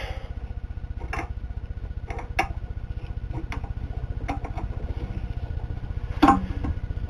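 Scattered short metallic clicks and taps from C-clamp screws being turned and shifting against a transmission clutch drum as a compressed clutch return spring is let off. A louder knock comes near the end, over a steady, fast low pulsing in the background.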